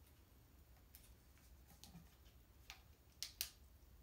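Near silence with a few faint clicks and ticks from hands handling a plastic flashlight, the loudest a close pair of clicks about three seconds in.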